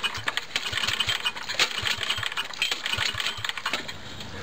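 Small single-cylinder engine being cranked over with its spark plug out and a compression gauge fitted, for a cold compression test: a rapid, uneven clatter of clicks and knocks that stops near the end. The gauge reads only about 30 psi, which the owner puts down to the compression release.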